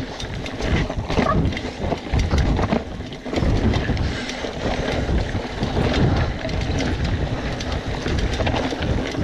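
BMC Twostroke AL hardtail mountain bike riding over dirt singletrack: steady tyre noise with a low rumble, and a constant run of clicks and rattles from the bike over roots and bumps.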